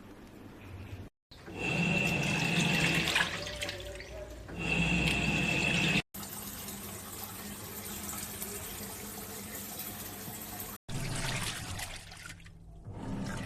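Washing machine running with water rushing and splashing in the tub, heard in several short clips that cut off abruptly one after another; in two of them a steady high tone sounds over the water.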